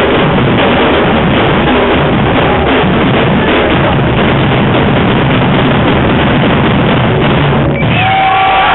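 Afro-Brazilian street percussion ensemble drumming loudly on bass drums and snares. The drumming stops suddenly near the end, and cheering and whoops follow.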